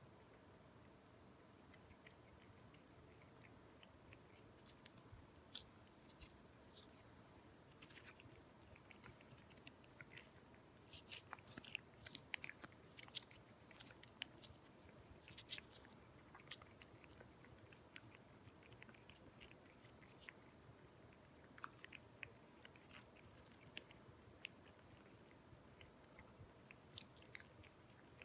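Two Ragdoll cats licking a lickable paste treat from a squeeze tube: faint, quick, wet licking clicks and smacks, busiest and loudest in the middle.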